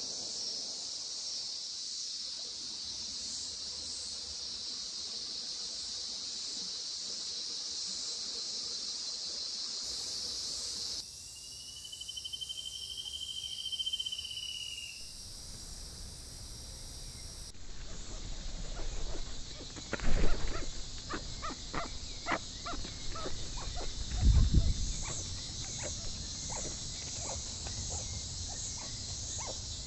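Steady high insect chorus throughout. Around the middle, one barred antshrike song of about three seconds, rising then falling in pitch. In the last third, forest-floor ambience with the insects, scattered clicks and rustles, and two loud low thumps about four seconds apart.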